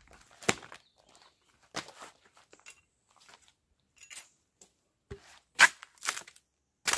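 A string of sharp cracks at uneven spacing, with the loudest a little past the middle and several more near the end.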